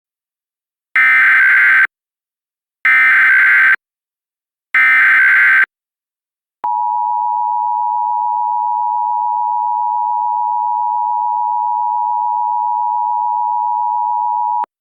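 Emergency Alert System tones. First come three bursts of the SAME digital header, each about a second long, encoding a hazardous materials warning. After a short gap, the two-tone EAS attention signal holds steady for about eight seconds.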